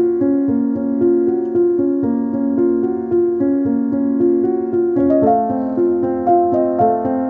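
Background piano music: a gentle run of evenly paced notes, moving to a new chord about five seconds in.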